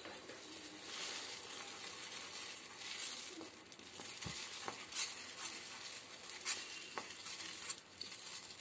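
Rolled oats being stirred with a spatula into boiling water in a steel kadai: a steady bubbling hiss with scattered scrapes and ticks of the spatula against the pan.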